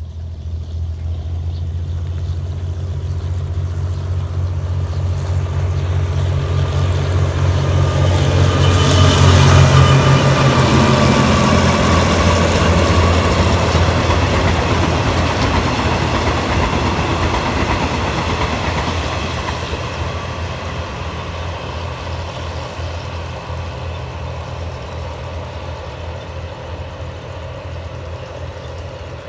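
A GE diesel-electric locomotive hauling a passenger train runs past with its engine loud and building, peaking about ten seconds in with a drop in pitch as it goes by. The coaches follow with a steady rolling rumble of wheels on rail that slowly fades away.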